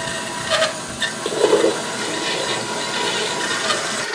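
Bandsaw running steadily, a continuous rushing whir with a faint held tone and a few light ticks, as it would sound cutting a small piece of wood.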